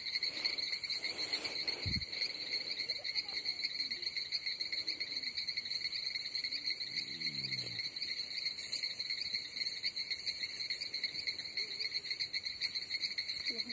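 A steady chorus of insects trilling at a high pitch without a break. A soft low bump comes about two seconds in, and a faint distant voice is heard briefly about halfway through.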